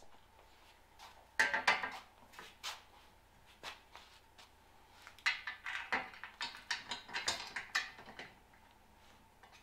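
Metal cab support bar clanking and clinking against the tractor cab frame as it is fitted into place: a short cluster of knocks about a second and a half in, then a longer run of clanks from about five to eight seconds in.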